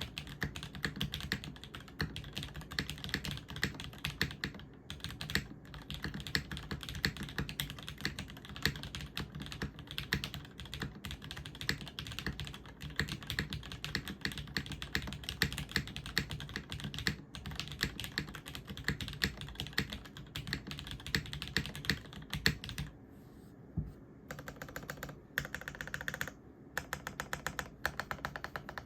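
Typing on a Jane V2 CE top-mount mechanical keyboard with an aluminium plate, lubed Cherry MX Hyperglide Black linear switches and GMK keycaps: a steady run of keystrokes that pauses briefly about 23 seconds in, then comes back in short bursts of quick keystrokes.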